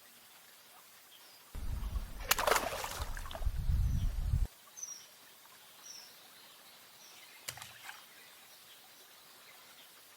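Faint short, high bird calls over quiet outdoor background. About a second and a half in, a loud low rumble starts abruptly, lasts about three seconds with a brief sharp crackle in it, then cuts off suddenly.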